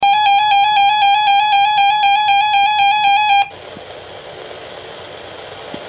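NOAA Weather Radio alert tone, a loud steady high tone with a fast flutter, sounding over a weather radio receiver to announce a warning broadcast. It cuts off abruptly about three and a half seconds in, leaving steady radio hiss.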